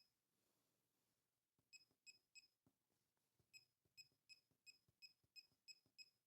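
Faint, short, identical high beeps from a laser projection keyboard, one for each key tapped on the projected layout while typing: three, a brief pause, then about three a second.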